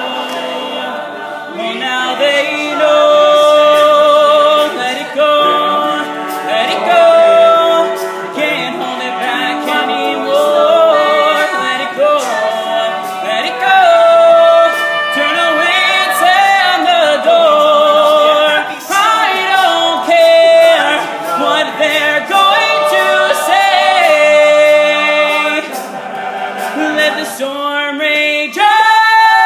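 All-male a cappella group singing, a solo tenor voice leading over the others' sung backing harmonies with no instruments. Near the end the voices slide up into a long held note.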